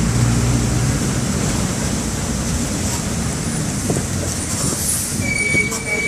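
Mercedes-Benz OF-1722M bus with its OM-924 LA four-cylinder diesel engine running. The engine's low hum is strong for about the first second, then eases into a rougher rumble with rattles. A high steady squeal comes in about five seconds in.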